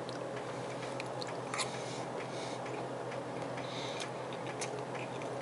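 Quiet room tone: a steady low hum with a few faint, irregular clicks, the loudest about one and a half seconds in.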